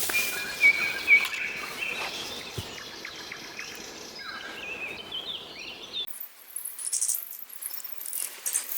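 Small birds singing and chirping over a steady background hiss. About six seconds in, the sound changes abruptly to a run of quick, light crackling clicks.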